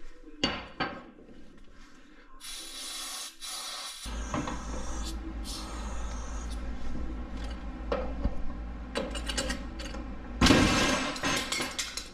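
Metal knocks and scraping as a compressed coil spring is worked into a car's front lower control arm under jack pressure. About ten seconds in comes one sudden, very loud bang: the spring compressor's saddle shears and the compressed spring bursts free.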